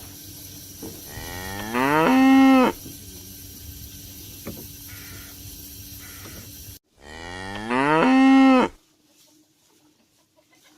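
Cow mooing twice, a few seconds apart: each moo rises in pitch and is then held for about a second.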